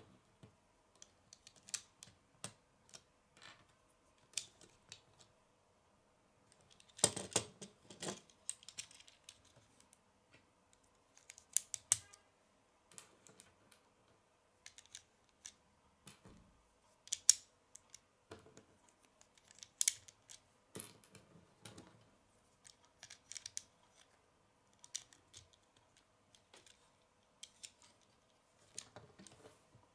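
Plastic Lego bricks clicking and snapping as they are pressed together and handled. The clicks come irregularly, with a busier stretch of clattering about seven seconds in.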